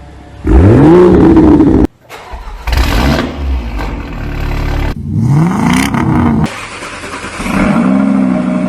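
Modified car engines revving in a run of short, abruptly cut clips: one engine climbs sharply in pitch and holds high before cutting off, a short noisy burst follows, then another rev rises and falls, and near the end an engine holds a steady raised rev.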